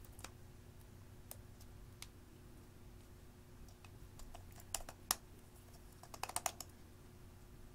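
Thin metal spatula clicking and scraping against a plastic lipstick tube as lipstick is dug out of it. The clicks are light and scattered, with a quick run of them about five seconds in and another a little after six seconds.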